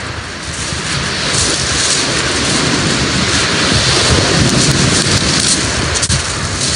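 Surf breaking and washing over a shingle beach, a steady rushing hiss that grows louder about a second and a half in, with wind rumbling on the microphone.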